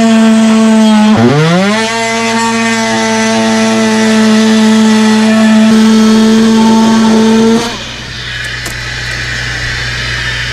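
Cordless oscillating multi-tool cutting through an RV ceiling panel, a loud steady buzz that drops in pitch about a second in as the blade bogs and then picks back up. The tool stops about three quarters of the way through, leaving the steady hiss of a vacuum drawing up the sawdust.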